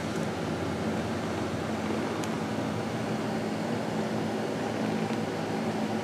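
Steady low hum and hiss of background room noise, like a fan or air conditioner running, with a faint tick about two seconds in.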